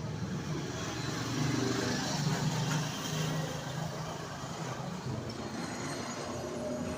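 Road traffic noise with a motor vehicle engine running, swelling about two to three seconds in as it passes.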